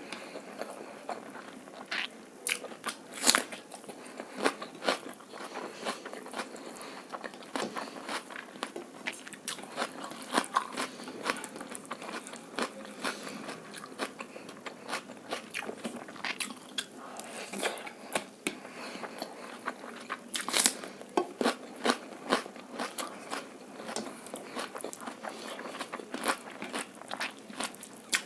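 Close-miked eating of egg fried rice and chilli chicken: steady chewing and biting with many short, sharp crunchy clicks. The loudest bites come about three seconds in and about twenty seconds in.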